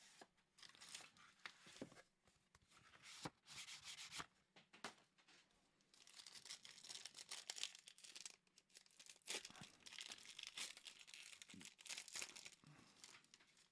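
A trading-card pack's wrapper is torn open by hand: faint, irregular tearing and crinkling, with a few sharp clicks.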